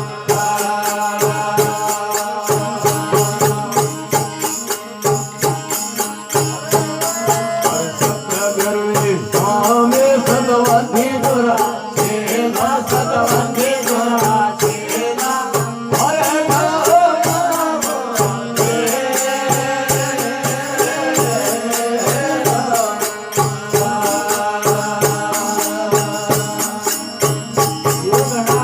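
Rajasthani devotional bhajan music: a wavering melodic line over a steady drone, with a fast, even beat of small jingling percussion.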